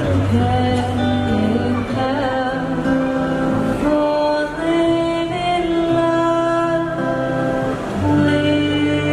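Music: a woman singing a held melody over guitar and steady bass.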